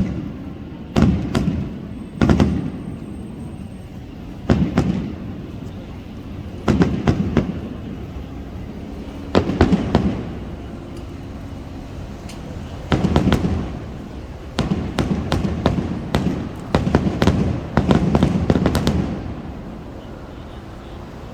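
Aerial fireworks shells bursting in a series of sharp booms, each followed by a low rumble. The bursts come in clusters and fall into a quick run near the end before stopping.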